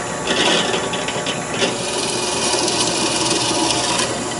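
Drill press running steadily while its Forstner bit bores down into a wooden block.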